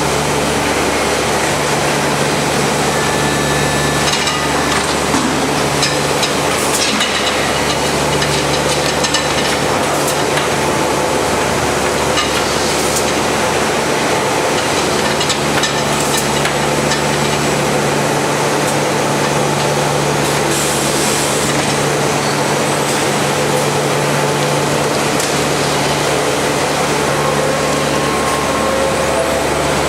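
Steady running noise of production-line machinery in a laminate-panel processing plant: a constant low hum under an even mechanical noise, with scattered clicks and knocks from the equipment.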